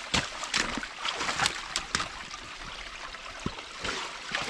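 Water trickling through a stick-and-mud beaver dam, with boots splashing and squelching in the shallow water and mud and sticks cracking in a quick run of sharp clicks over the first two seconds.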